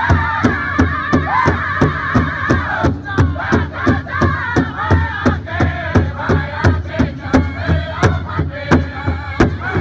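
Powwow drum group singing a jingle dress song around a big bass drum, the drum struck in a fast, even beat of about four strokes a second. High-pitched voices carry the song, with women's voices joining in, and the melody moves down into lower phrases about three seconds in.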